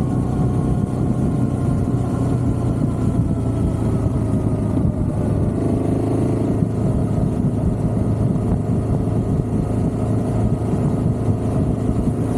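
Vehicle engine running steadily at cruising speed while riding down a road, with wind and road noise rushing over the microphone. The engine note shifts slightly about five to six seconds in.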